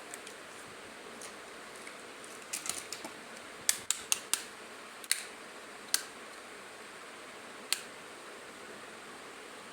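Small plastic toy pieces clicking and tapping as they are handled: scattered sharp clicks, bunched about three to four seconds in, then a few single ones, over a faint steady hiss.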